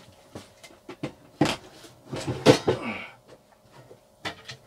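Knocks and clatter of a thermal cooker pot being handled and stowed in a low cabin locker: small clicks throughout, a sharp knock about a second and a half in, then a longer spell of clatter a little after two seconds.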